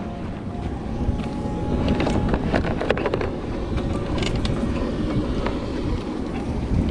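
Boat engine idling alongside a wooden dock, a steady low rumble. A cluster of knocks and rattles about two to three seconds in, and a few more near the middle, as spearfishing gear is picked up off the planks.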